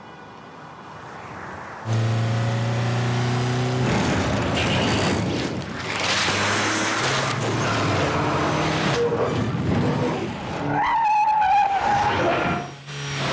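Car engine running loud at changing pitches, coming in suddenly about two seconds in. Tyres squeal in a long wavering squeal between about ten and twelve seconds in.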